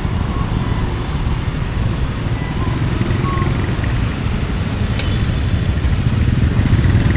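Street traffic with motorbike and car engines, a steady low rumble.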